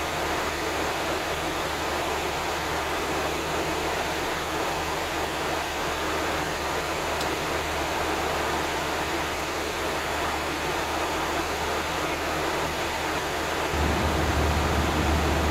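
Steady rush of airflow and engine noise heard inside an airliner in flight. Near the end a low hum becomes louder.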